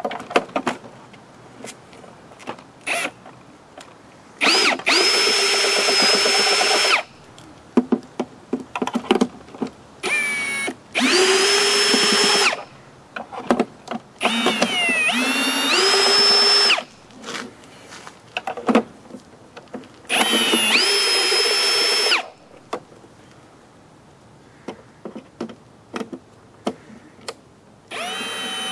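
Cordless drill/driver backing screws out of a plastic housing. It runs five times, a couple of seconds each, and each run is a steady motor whine; one rises in pitch as it spins up. Small clicks and knocks of handling come between the runs.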